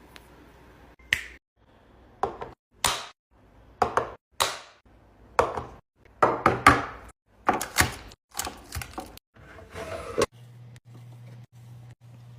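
Items being set into a fridge and its organizer bins: a run of separate knocks, clunks and clatters, some in quick clusters, about one to two a second. For the last two seconds they stop and a steady low hum is left.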